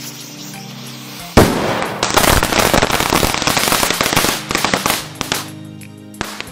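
A firework charge strapped to a toy car goes off: a sudden sharp bang about a second and a half in, then about three seconds of dense crackling that dies away. Background music runs underneath.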